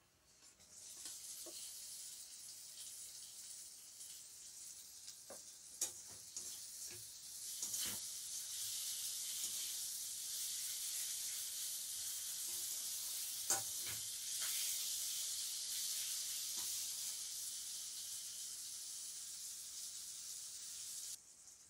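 Chopped tomatoes sizzling in hot oil and fried masala in a metal kadai, with a spatula scraping and knocking against the pan as they are stirred in. The sizzle starts about half a second in, grows louder after a few seconds and cuts off suddenly near the end.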